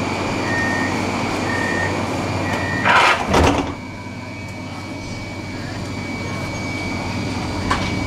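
Tram door-closing warning: three short beeps at one pitch about a second apart, then the sliding doors shut with a short, loud, two-part rush of noise just after the third beep. Afterwards the tram's background hum is quieter and slowly grows louder.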